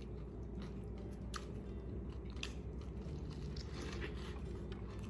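A person chewing and biting into a sesame-bun cheeseburger, with short wet mouth clicks scattered through.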